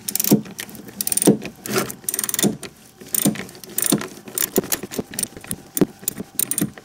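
Socket ratchet clicking in short strokes as it loosens a 13 mm bolt on an ignition coil bracket, with metal tool clinks in between; clusters of sharp clicks come roughly every half second to a second.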